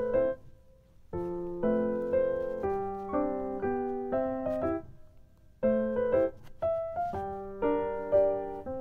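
Background piano music: phrases of single notes and chords, with short pauses about a second in and around the middle.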